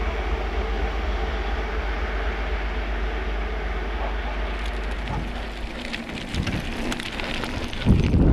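Romanian class 40 electric locomotive approaching: a steady low hum and rumble with a few level tones over it. From about halfway in, a run of sharp clicks and rattles comes in as it nears. Near the end, wind buffets the microphone.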